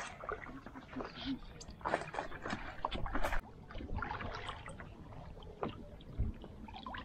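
Water splashing and lapping around a stand-up paddleboard as the paddle dips, in short irregular splashes.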